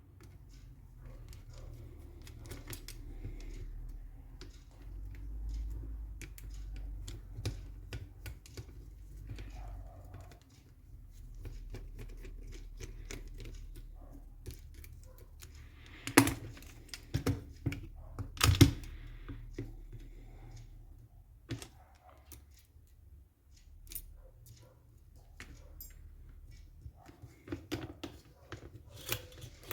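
Scattered small clicks and taps of hands and a screwdriver working the many screws and parts of an airsoft M14 rifle during disassembly, with two louder knocks a couple of seconds apart about halfway through, over a low steady hum.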